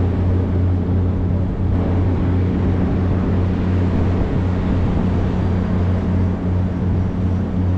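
Boat engine running steadily with a deep, even drone.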